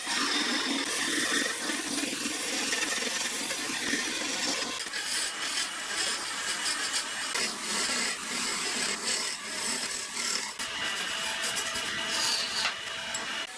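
A tool rasping and rubbing on wood, steady and scratchy with scattered short knocks.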